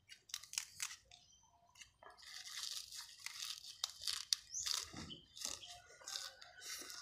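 Fresh lettuce leaves being torn by hand, then a person crunching and chewing a lettuce-leaf wrap of fish and vegetables close to the microphone.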